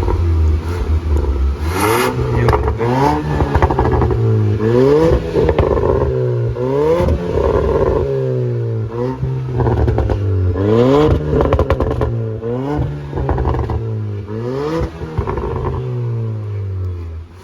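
Jaguar XF petrol engine revved again and again in short blips through a valvetronic exhaust with the valves closed, its pitch climbing and falling about every second and a half to two seconds. Crackles and pops come on the lift-offs, which is typical of this petrol automatic once the end cans are swapped.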